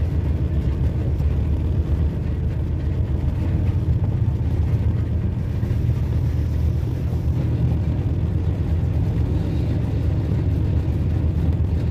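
GE U20 diesel-electric locomotive running steadily as it rolls along the track: a loud, even, low-pitched drone with no let-up.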